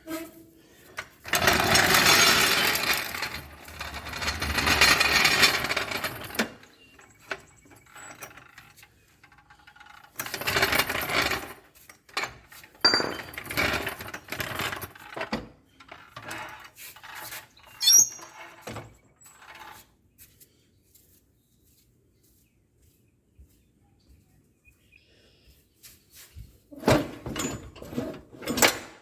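Metal scraping and clanking of a John Deere 43C front blade and its mounting frame being worked into the latch on the tractor: long stretches of dragging and scraping, then scattered sharp knocks, a pause, and more scraping near the end.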